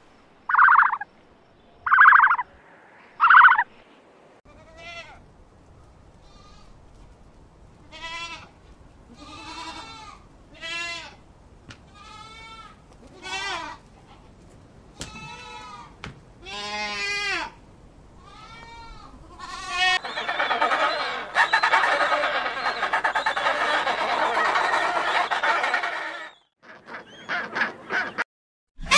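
Goats bleating: a run of short, wavering bleats, one after another, for about fifteen seconds. Before them come four short, loud, sharp animal calls. After them come about six seconds of a dense, steady chorus of animal calls.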